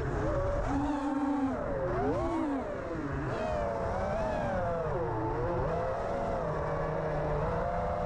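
FPV quadcopter's Emax Eco 2306 1900KV brushless motors whining in flight, the pitch rising and falling continually with the throttle.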